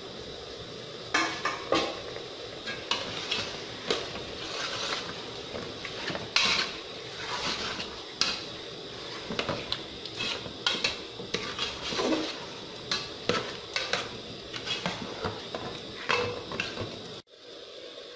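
Metal ladle stirring pork stew in a metal pot, clinking and scraping against the pot over and over at an uneven pace, over a steady hiss. The clinking stops near the end.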